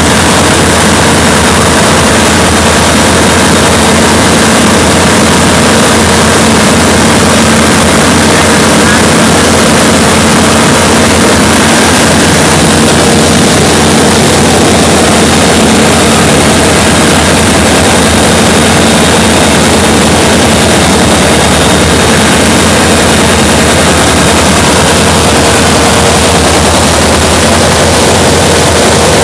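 Single-engine light aircraft's piston engine and propeller running steadily in level flight, loud from inside the cockpit, with rushing air noise mixed in.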